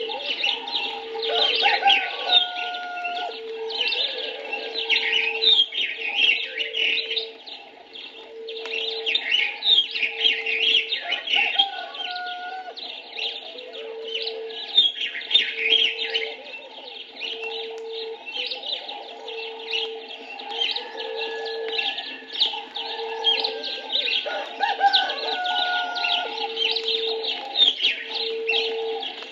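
Dense chorus of African birds chirping and trilling, with occasional gliding whistles. One bird repeats a short low steady note regularly, about every second and a half.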